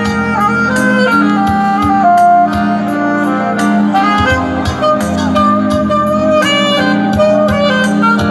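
Background music: a jazzy tune led by a saxophone or clarinet over a steady beat.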